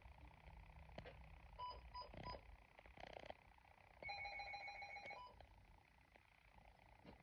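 Running Snail MD-329 emergency weather radio sounding its alert, faint: three short beeps about two seconds in, then a rapidly pulsing alarm tone for about a second, ending in one short beep.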